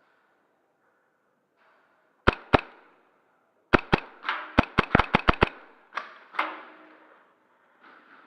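Gas blowback airsoft pistol firing: two sharp shots a quarter-second apart, then a rapid string of about nine shots in under two seconds, followed by two softer cracks.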